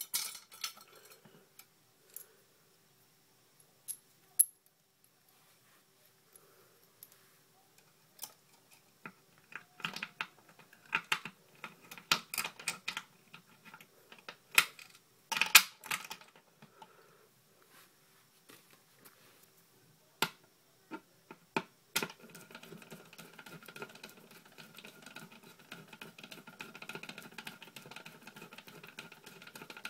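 Irregular clicks and metallic taps of wire being handled and fitted into the metal lugs of an electric meter socket, most of them bunched in the middle with the sharpest near the midpoint. A faint steady background noise comes in about two thirds of the way through.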